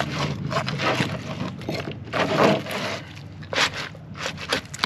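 A 9-inch serrated fillet knife sawing through a fish's rib cage: irregular scraping and sharp clicks as the blade works through the rib bones.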